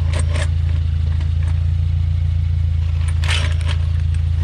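Subaru WRX's FA20 turbocharged flat-four engine idling steadily. A short scrape or clatter about three seconds in.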